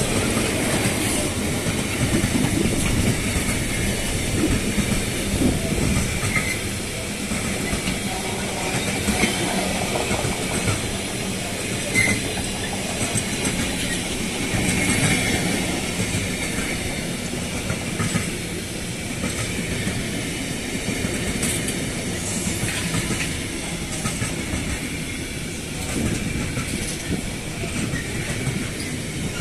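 Wagons of a long container freight train rolling past at close range: a continuous rumble of steel wheels on the rails, with clicking as the wheelsets run over rail joints.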